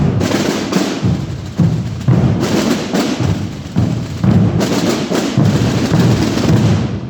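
A large group of drums played together in a loud, dense, driving rhythm, with deep drum beats under a continuous rattle of strokes; the drumming stops abruptly near the end.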